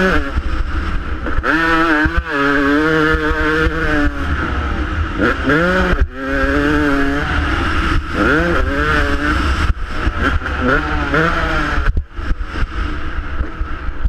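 Dirt bike engine under hard throttle, its pitch sweeping up again and again as the rider opens the throttle and shifts, with wind rush on the microphone. The engine note falls away about twelve seconds in as the throttle is closed.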